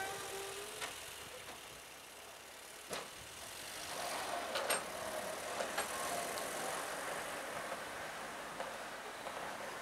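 Homemade tractor's engine running faintly in the distance, with several sharp clicks about a second in, at three seconds and around the middle.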